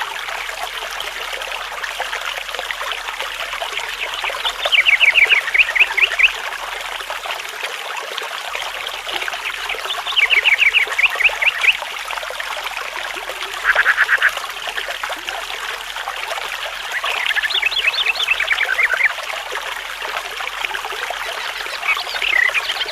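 Water trickling steadily, with a bird repeating a short, rapid trill every few seconds.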